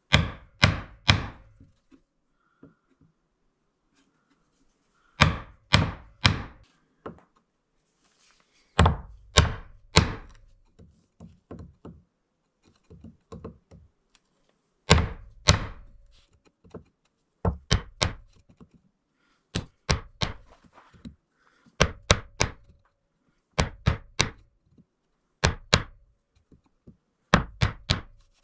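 Chisel being struck to chop a groove into a wooden board, in quick runs of three to five sharp blows with short pauses between runs.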